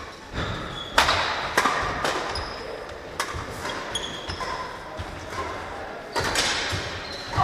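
Sharp cracks of badminton rackets striking the shuttlecock during a rally, several spread over the stretch, the strongest about a second in and about six seconds in. Between the hits, sports shoes squeak and feet thud on the hall floor.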